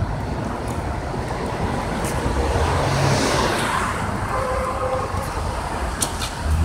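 City street traffic: a steady wash of car noise with a low rumble, swelling as a vehicle passes about three seconds in. A couple of sharp clicks come near the end.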